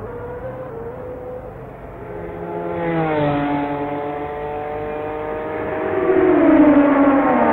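1971 Formula 1 race cars passing at full speed, each engine note dropping in pitch as it goes by: one about three seconds in, and a louder one about six seconds in.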